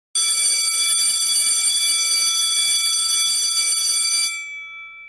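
An electric alarm bell rings loudly and steadily for about four seconds, then stops, its lower tones ringing on briefly as they fade.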